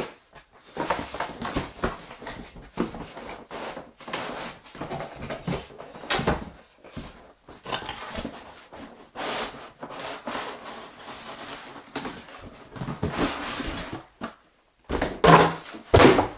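Cardboard packaging rustling, scraping and knocking as a blender box is tipped and its cardboard inserts are pulled out by hand. A short, louder burst comes near the end.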